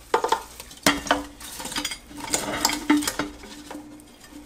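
Knocks and clatter as cooked chicken wings are tipped out of an air fryer's nonstick basket and tumble onto a ceramic plate.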